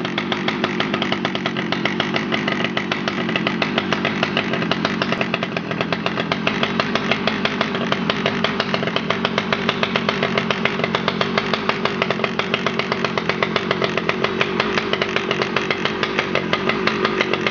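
Husqvarna 2100 XP's 100cc two-stroke chainsaw engine running steadily at a constant speed, not revving, with a regular pulsing beat.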